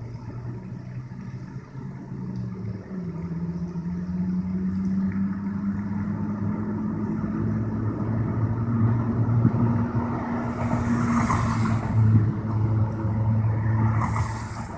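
A motor vehicle engine's steady low drone that grows gradually louder, its pitch shifting slightly a couple of times, with two brief hisses near the end.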